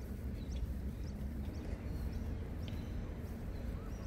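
Outdoor city park ambience: a steady low rumble with short, high bird chirps scattered throughout and a few brief whistled calls near the end.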